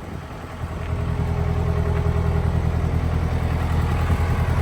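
Case 580 Super K backhoe's Cummins 4-390 four-cylinder diesel idling steadily, growing louder about a second in. The engine runs clean, with no knocking or ticking.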